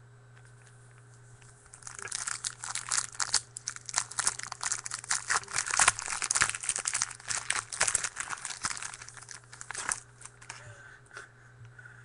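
Foil trading-card pack wrapper being torn open and crumpled: dense crinkling and crackling, starting about two seconds in and dying down near the end.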